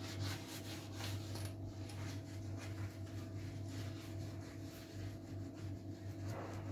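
Faint scrubbing of a sponge rubbed back and forth over a gas hob top, wiping off grime loosened by degreaser, over a steady low hum.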